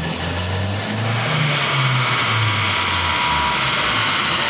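A 2007 Mazdaspeed3's turbocharged 2.3-litre four-cylinder, fitted with an AEM cold-air intake, is run at full throttle on a chassis dyno and climbs in pitch through the revs. About three seconds in the engine note falls away, leaving a steady rushing noise.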